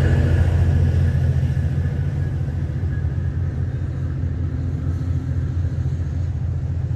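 Low, steady rumble of a departing Tri-Rail commuter train moving away, with the higher rail and wheel noise fading in the first couple of seconds.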